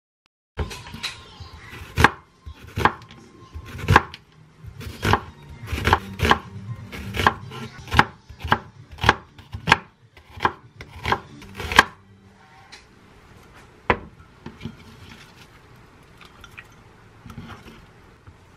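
Chef's knife thinly slicing an onion on a wooden cutting board: a series of sharp knocks of the blade on the board, roughly one to two a second. The knocks stop about twelve seconds in, with one more a couple of seconds later.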